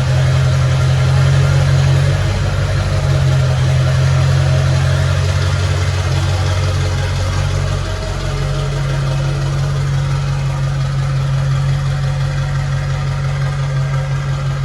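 Chevy Silverado 2500's Duramax V8 turbodiesel idling steadily, with a strong low drone that shifts slightly a couple of times.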